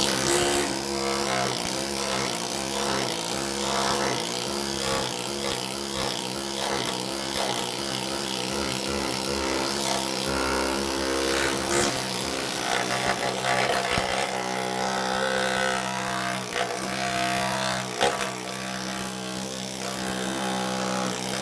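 Air needle scaler running steadily, its needles hammering dry underseal off a car's steel floor pan with a continuous buzz. It starts abruptly right at the beginning.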